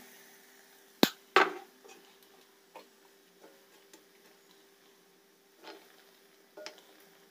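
Malpua batter frying in hot oil in an iron kadai, a faint sizzle under a steady low hum, with sharp metal clicks of a ladle and slotted spatula knocking the pan: two loud ones about a second in, lighter taps after.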